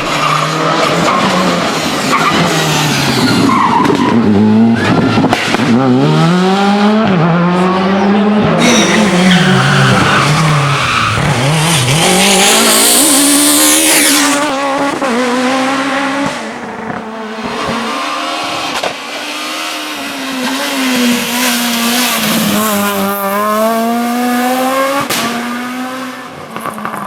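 Rally cars driven flat out, engines revving high with the pitch climbing and dropping sharply through gear changes. About a third of the way in a high hissing squeal of tyres rises over the engine as a car slides through a corner.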